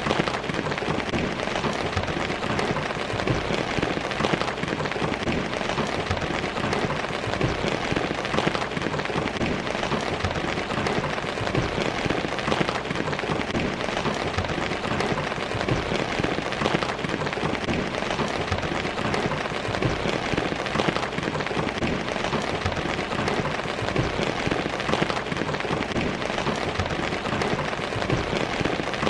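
Steady rainfall, many raindrops pattering on surfaces in a dense, unbroken hiss.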